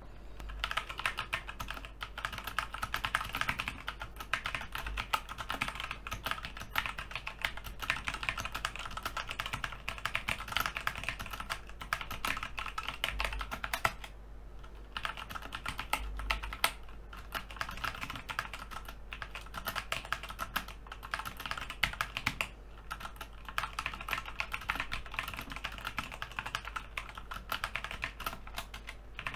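Continuous typing on a Logitech G512 Carbon mechanical keyboard with GX Brown tactile switches: a fast, irregular run of key clacks with no sharp click of clicky switches, and a brief pause about halfway through.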